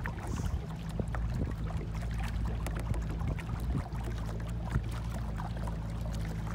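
Small boat moving steadily across calm water: a low, even motor hum, with light water splashes against the hull.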